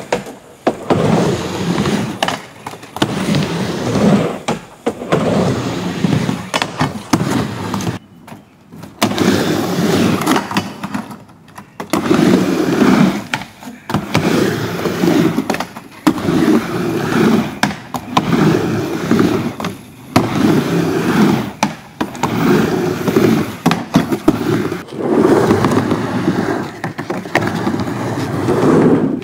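Skateboard wheels rolling back and forth across a wooden halfpipe, a rumble that swells and fades with each pass, about one pass every second and a half. Sharp clacks from the board hitting the ramp are mixed in.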